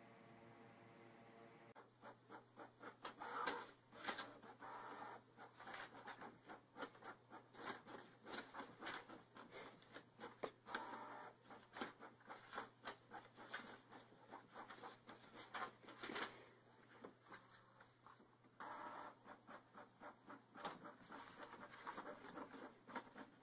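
Paper rustling and scratching as a cat paws at sheets in an inkjet printer's output tray: a long run of irregular, quick scratchy rustles and light taps.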